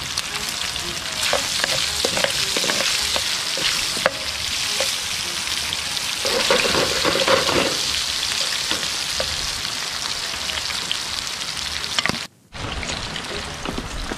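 Bacon frying in oil in a skillet over a wood fire, sizzling steadily with many small pops and spits. The sound cuts out for a moment near the end.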